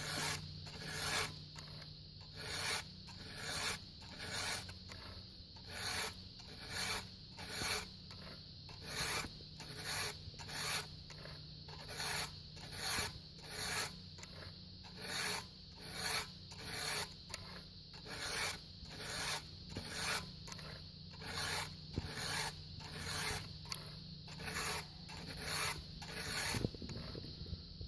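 Round file rasping across the cutter teeth of a chainsaw chain during sharpening: short, even push strokes, roughly one and a half a second, often in pairs.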